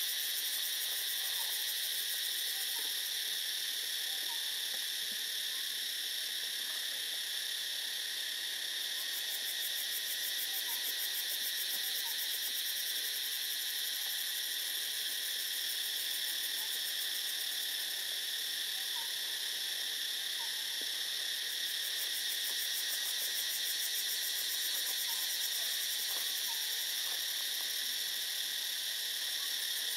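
Steady, dense insect chorus filling the high range without a break, with faint short calls repeating every second or two underneath.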